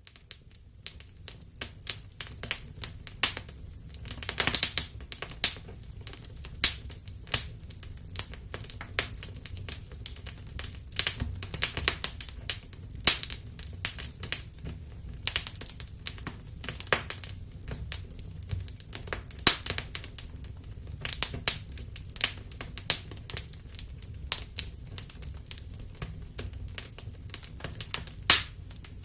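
Wood fire in a fireplace crackling: irregular sharp pops and snaps, several a second, some much louder than others, over a steady low rumble of the flames.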